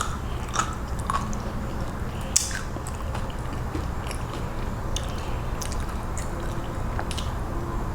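A person chewing and biting into loaded nachos, with scattered sharp crunches of Doritos tortilla chips over a steady low hum.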